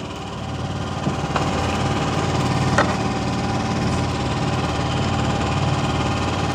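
A small engine running steadily at idle on a fishing boat, its even firing hum unbroken throughout, with a couple of light knocks about a second and a half and three seconds in.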